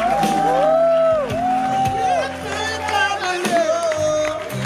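A live rock band playing a slow instrumental passage: sustained keyboard chords and bass under a melodic line of long sliding, bending notes, with occasional cymbal crashes.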